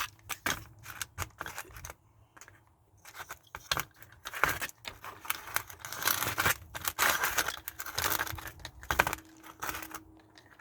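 Parts of a GE washer mode shifter being handled and fitted by hand: irregular clicks, scrapes and rustling, with a short lull about two seconds in.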